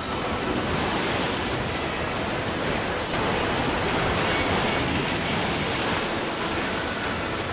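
Sea surf breaking and washing over rocks along a rocky shore: a steady rushing noise of water.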